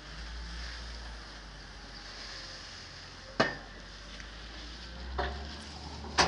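Shovel working loose dark material off a truck's metal bed, with a sharp metallic clank about three and a half seconds in, a softer knock a couple of seconds later and another sharp clank near the end.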